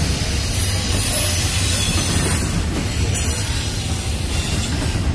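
Union Pacific double-stack intermodal train's well cars rolling past: a steady low rumble of steel wheels on rail, with a very high-pitched wheel squeal that rises and fades twice.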